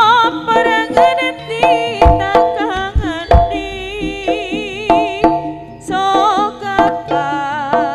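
Live Javanese jaranan gamelan music: kendang hand drums beating, with several heavy low strokes, under ringing metal percussion notes and a high melody line with a strong, wavering vibrato.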